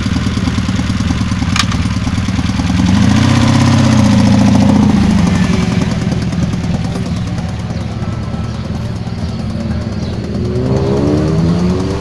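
Honda motorcycle engine idling, revved up and back down about three seconds in, and rising in pitch again near the end. A sharp click sounds about a second and a half in.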